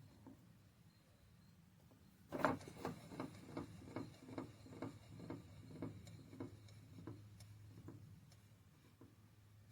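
A sharp knock, then a run of evenly spaced ticks, about two to three a second, that fade away over several seconds.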